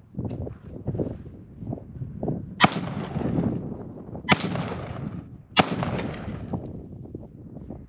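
Three rifle shots from a .223 rifle firing green-tip rounds, about a second and a half apart, each followed by a rolling echo.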